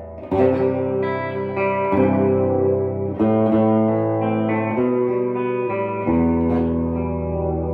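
1965 Harmony H72 full hollow-body electric guitar with DeArmond gold foil single-coil pickups, strummed: a run of ringing chords, a new chord about every one and a half seconds.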